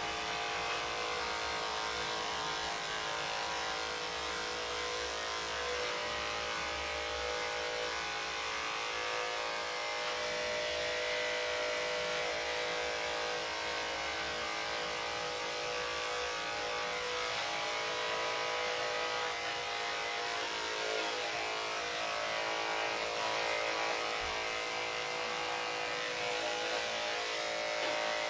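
Corded electric dog-grooming clipper fitted with a 4F blade, running with a steady hum as it trims the fur on a dog's head.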